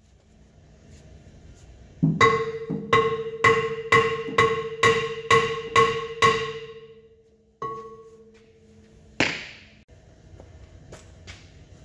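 Hammer blows on a three-jaw puller clamped to a steel tractor wheel hub: about nine hard metallic strikes, roughly two a second, each ringing at the same clear pitch. One more ringing strike follows a little later, then a single louder sharp noise near the end.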